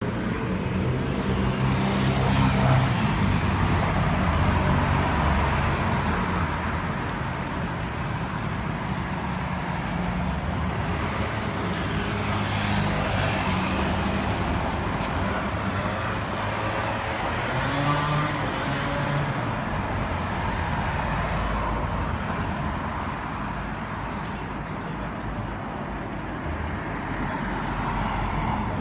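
Märklin HO model trains running on a display layout: a steady rumble and whir of small motors and wheels on the track, over the background noise of a shop.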